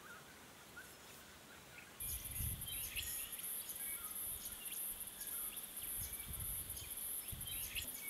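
Wild birds calling: faint scattered chirps at first, then about two seconds in a louder recording of many short bird calls over a steady high hiss and low rumbles.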